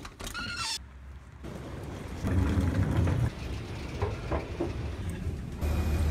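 Low mechanical rumble of moving machinery or a vehicle, with two louder stretches, after a brief high-pitched sound that slides down in pitch at the very start.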